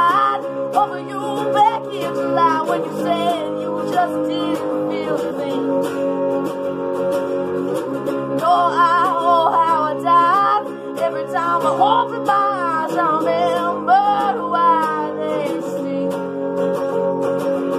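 Fender Telecaster electric guitar strummed and picked steadily while a woman sings. The voice comes in phrases, with a stretch of guitar alone in the middle.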